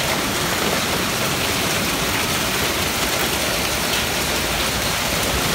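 Hail and rain falling hard on a paved street and parked scooters: a steady, dense hiss.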